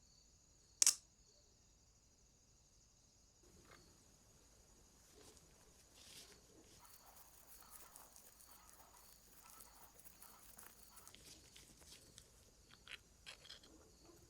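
Faint handling sounds from work on the lamp: one sharp click about a second in, then light scraping, rustling and small clicks that get busier toward the end.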